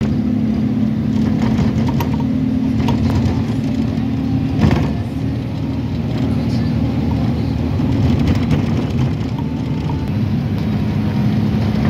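Steady road and engine drone heard inside the cabin of a moving car, with a low hum, and a brief knock about four and a half seconds in.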